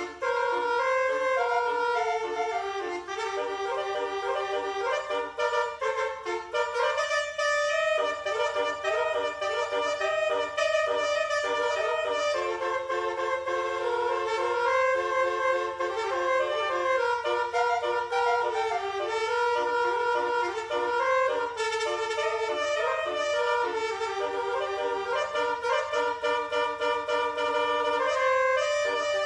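Telolet basuri bus horn, a multi-trumpet musical horn, playing a continuous melody of short trumpet-like notes with several tones sounding together.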